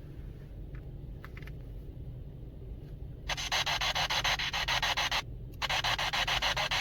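Low steady rumble, then about halfway in a loud hiss with fast, even pulsing starts abruptly. It breaks off briefly near the end and starts again: static from an electronic device.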